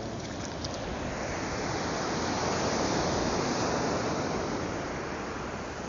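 Surf breaking and washing up the beach: a rushing wash of water that swells to its loudest about halfway through and then eases off.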